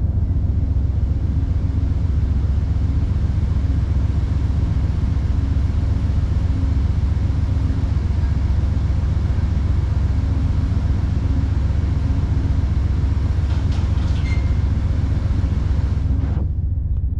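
Amtrak passenger train standing at the station with its diesel locomotives idling: a steady low rumble with a faint hum. A light hiss over it stops near the end.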